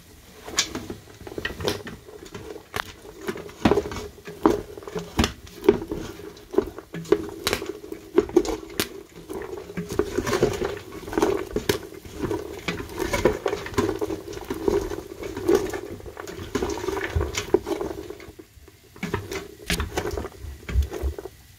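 Wooden spoon stirring sugar-coated popcorn in a stainless steel saucepan: popcorn rustling, with frequent knocks and scrapes of the spoon against the pan. A steady low hum runs underneath, strongest through the middle.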